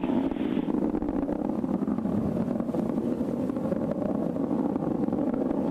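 Steady roar of the Atlas V rocket's RD-180 first-stage engine during ascent, an even, rough noise centred in the low-middle range with no breaks.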